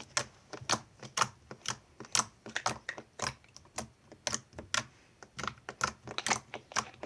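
Sticky purple slime being squished and stretched by hand, with cocoa butter lotion being worked in, giving a run of irregular wet clicks and pops, a few each second.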